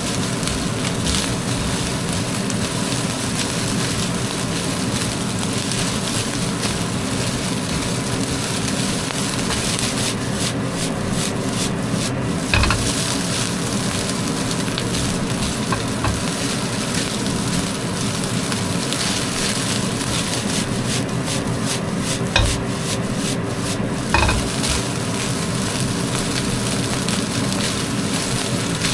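Egg-coated rice being stir-fried in a hot pan: a steady sizzle under continuous stirring and scraping, with three sharper knocks of the utensil against the pan about halfway through and near the end.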